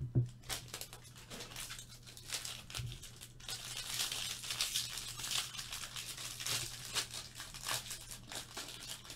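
Baseball card pack wrappers being torn open and crinkled by hand, a dense run of irregular crackles and rips, over a low steady hum.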